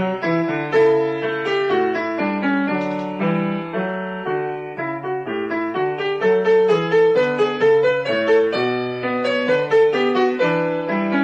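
Piano music, a lively run of quick notes played without pause.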